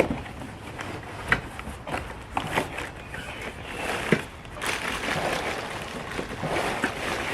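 Packaging being handled as a box of parts is unpacked: irregular rustling and crinkling with scattered sharp clicks, busiest in the second half.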